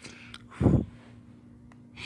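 A person exhaling a draw from a vape: a brief breathy hiss that ends in a short, low puff of breath hitting the microphone about half a second in. A couple of faint clicks follow.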